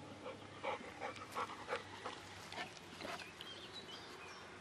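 A black Labrador breathing in short quick puffs, about three a second, panting and sniffing as it noses into the ground.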